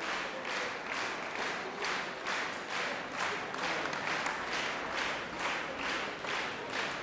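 Audience applauding in rhythmic unison, about three claps a second.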